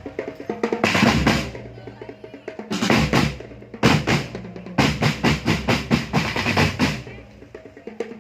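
Marching-band drum line, snare and bass drums, playing short clusters of hits about a second, three seconds and four seconds in, then a longer fast run of beats near the middle, with brief gaps between phrases.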